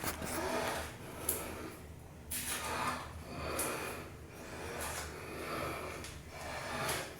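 A man breathing hard in a series of noisy breaths, roughly one a second, as he strains to reach.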